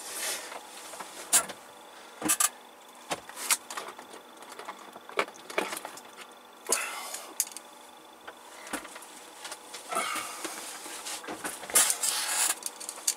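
Scattered clicks, light knocks and short rustles of tools and test leads being handled on a workbench, with no steady source.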